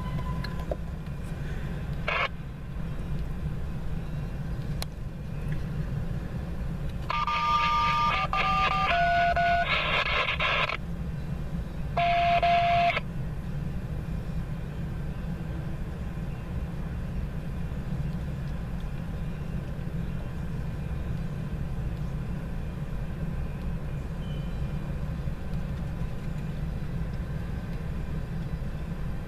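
Tank cars of a freight train rolling past, a steady low rumble heard from inside a car. About seven seconds in, a short run of electronic beeps steps through several pitches, and a single beep follows about five seconds later.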